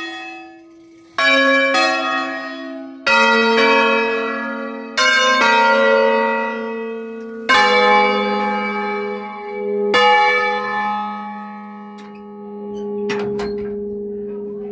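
Five bronze church bells, cast by Giorgio Pruneri in 1907 and tuned in A♭, heard close up in their bell chamber. They sound a slow, uneven run of single strokes, each tone ringing on over the last. After about ten seconds the strokes stop and the low hum dies away, with a few light knocks near the end.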